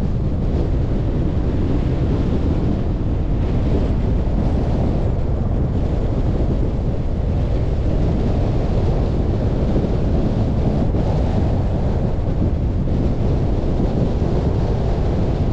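Steady wind rumble on the microphone of a camera on a moving car, a constant deep noise with no breaks.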